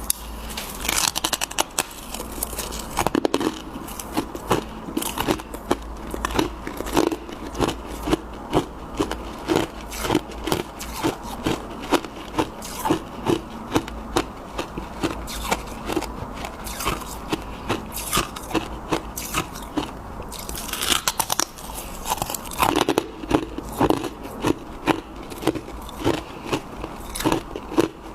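Close-up biting and chewing of freezer frost and soft powdery ice. A few loud crunching bites come about a second in, around three seconds in, and again near the end, with steady rhythmic chewing crunches, a little under two a second, in between.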